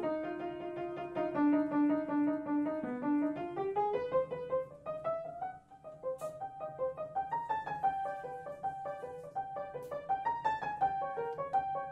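Upright piano played solo in quick running notes, with a rising run partway through and a brief lull near the middle.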